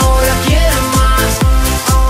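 Electronic dance music with a steady kick drum about twice a second under held synth notes.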